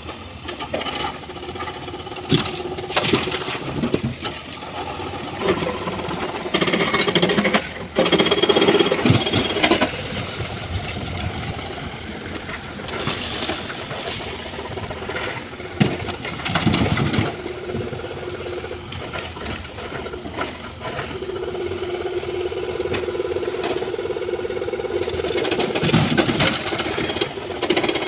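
Hydraulic excavator working: its diesel engine runs and rises and falls under load, with a steady hydraulic whine, while rocks knock and clatter in repeated heavy spells as they are loaded into a dump truck.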